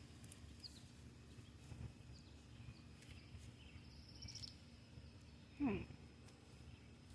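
Quiet outdoor background with faint bird chirps and a short trill. About five and a half seconds in comes one short animal call that falls steeply in pitch.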